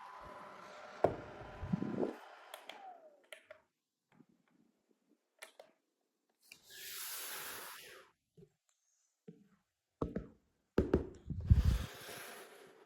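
Tower fan's motor hum fading out, its whine falling in pitch about two to three seconds in. Then scattered plastic clicks and knocks from handling, a short hiss, and a cluster of heavy thumps near the end, which are the loudest sounds.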